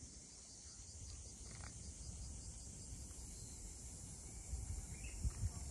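Insects buzzing steadily in a high register over a low rumbling background, with a few soft thumps near the end.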